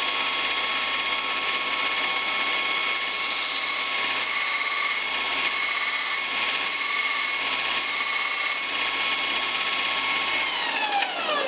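Belt grinder running with a steady motor whine, with spells of hissing grinding in the middle as a steel punch is pressed to the belt. Near the end the grinder is switched off and the whine falls in pitch as it spins down.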